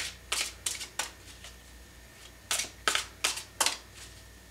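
Tarot deck being shuffled by hand: two runs of four quick, crisp card strokes, with a pause of about a second and a half between them.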